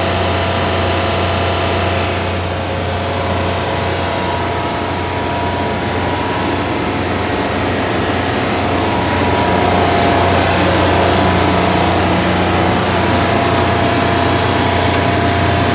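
Engine of a Denyo silent 300 A welder-generator with built-in air compressor, running at a steady speed with a hiss over it that grows slightly louder about ten seconds in.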